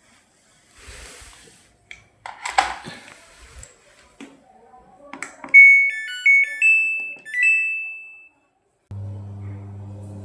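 A Samsung washing machine's control board plays its short electronic power-on tune, a few stepped beeps, after a couple of clicks from the controls. Near the end a steady low hum starts as a motor or pump in the machine begins running, showing that the repaired control module works.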